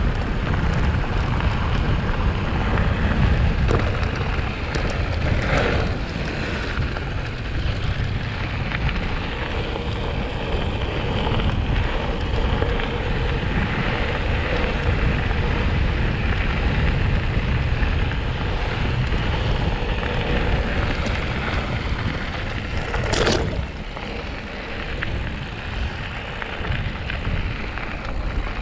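Wind noise on the microphone over the steady rumble and crunch of mountain bike tyres rolling on a gravel track. One sharp knock about 23 seconds in, after which it is a little quieter.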